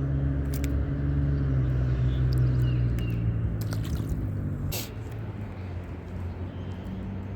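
Low, steady hum of a vehicle engine that drops off sharply about five seconds in, with a few sharp clicks, the loudest as the hum drops.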